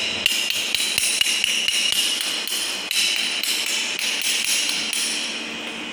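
Chipping hammer tapping quickly and irregularly on a freshly welded butt joint, knocking the slag off the weld bead: a run of light metallic taps, several a second.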